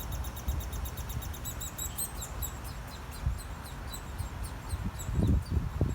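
Hairy woodpecker nestlings peeping from the nest hole: a rapid run of short, high chirps, with a few low thumps near the end.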